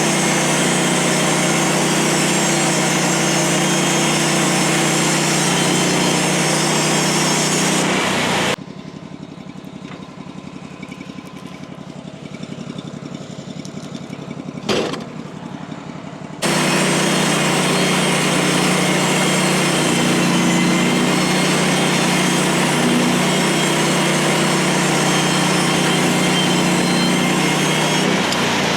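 Portable bandsaw mill running steadily with its engine under load as the blade cuts through a pine log. About eight seconds in, the sound drops abruptly to a much quieter, duller engine sound with one sharp knock. The loud running comes back about eight seconds later.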